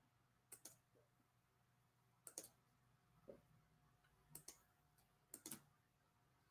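Faint computer mouse clicks, mostly in quick pairs, in five small bunches about a second apart.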